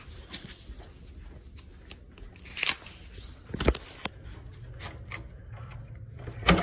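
Handling noise of a phone held against clothing: fabric rubbing over the microphone, with three sharp knocks, the loudest near the end.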